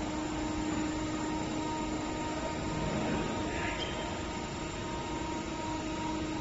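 Electric three-way (VNA) forklift stacker's hydraulic pump motor running with a steady hum as the fork head swings the raised pallet sideways.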